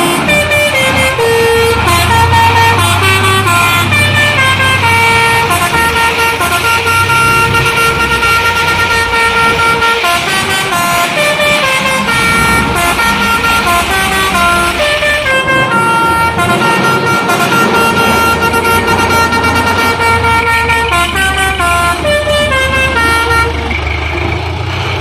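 Basuri telolet horn on a dump truck playing a tune, its tones stepping from note to note, over the steady low rumble of the truck's engine running.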